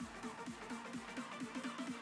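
Electronic dance music: a fast run of short, plucked synth notes over a beat.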